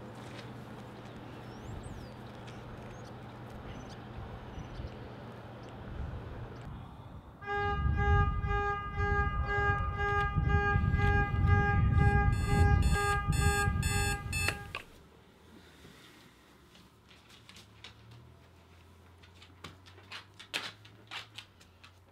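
Electronic alarm clock beeping in steady pulses over a heavy low rumble for about seven seconds, then cut off suddenly. Before it there is a low steady hum of outdoor ambience, and after it a quiet room with a few soft clicks.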